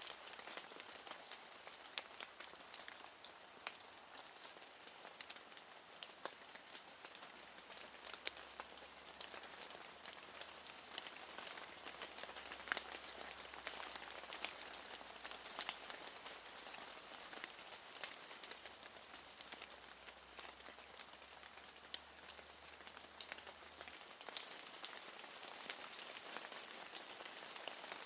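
Steady rain: an even hiss dotted with many sharp ticks of individual raindrops close by.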